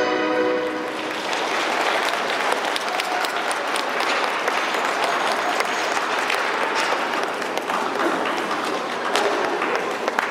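Figure skating program music ends about half a second in, giving way to an audience applauding steadily.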